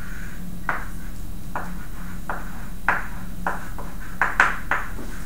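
Chalk tapping and scratching on a blackboard as figures and a small moment arrow are written: a string of short, sharp taps, the loudest clustered about four seconds in.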